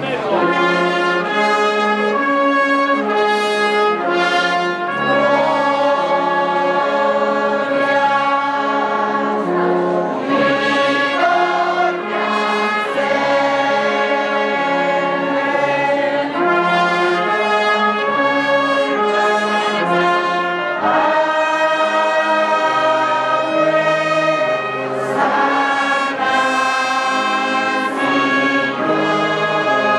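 Brass band of trumpets, trombones and saxophones playing a slow tune in held chords, with a bass line stepping under it.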